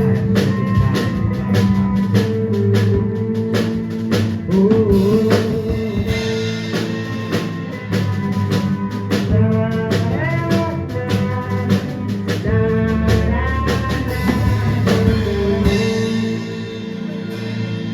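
A live band plays the instrumental intro of a gospel worship song: a drum kit keeps a steady beat under guitar and sustained keyboard chords, with a few wordless sliding melodic lines over the top.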